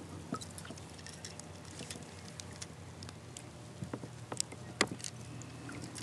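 A smallmouth bass being drawn to a landing net at a kayak's side: faint water sounds with a few small, sharp splashes and clicks, most of them between about four and five seconds in.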